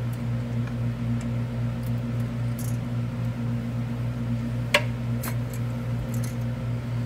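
A steady low mechanical hum, with a few faint clicks and one sharper click about five seconds in, from bolts being threaded by hand into the pitch stop mount bracket.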